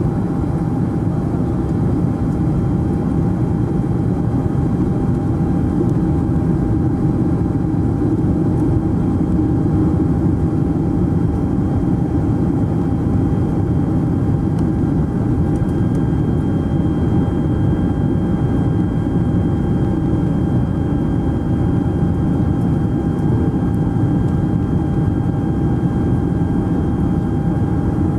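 Steady in-flight cabin noise of a Boeing 747SP over the wing: a dense rumble of engines and airflow with a steady whine, on approach with the flaps extended. A fainter, higher whine joins about halfway through.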